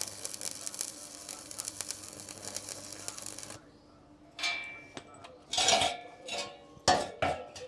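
Electric arc welding on steel: a steady crackling arc that cuts off about three and a half seconds in. It is followed by several sharp metallic clanks that ring briefly.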